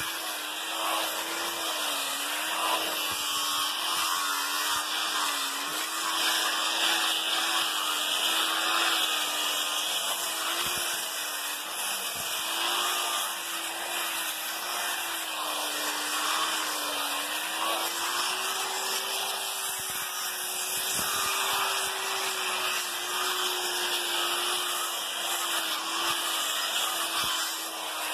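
Angle grinder with an abrasive sanding disc running steadily while sanding wood, its motor whine wavering slightly up and down as the disc is pressed and moved over the surface.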